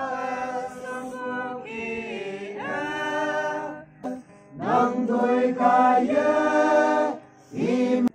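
A small mixed group of men and women singing a hymn together, held notes in long phrases, breaking off briefly about four seconds in and again near the end.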